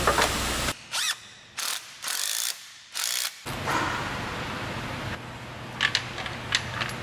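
Several short runs of ratchet-wrench clicking, with sharp knocks and clicks of engine parts being handled and bolted on.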